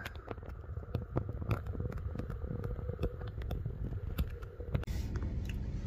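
Low rumble of wind on the microphone, with scattered light clicks and crackles.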